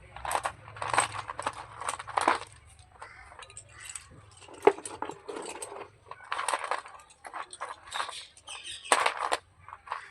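Slate pencils crunching and scraping in irregular short bursts, several a second.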